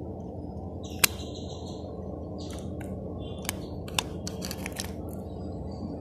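Handling noise from a metal-and-glass gate lamp and its wiring: a sharp click about a second in, two lighter clicks and some rustling a few seconds later, over a steady low hum.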